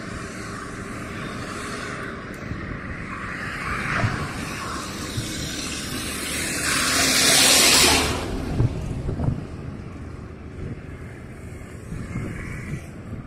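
Steady road and wind noise from a moving vehicle on a highway, with a loud rushing whoosh about two-thirds of the way through as an oncoming truck passes close by.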